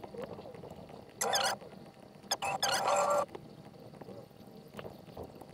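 Brief snatches of a video's soundtrack playing in an editor preview, cutting in and out abruptly as playback is started and stopped on the timeline. There is one snatch about a second in and a longer, broken one from about two to three seconds in, with faint hiss between.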